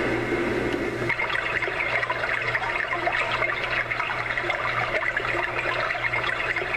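Homedics SoundSpa clock radio playing its recorded "brook" nature sound through its small speaker: steady bubbling, trickling stream water, which turns brighter about a second in.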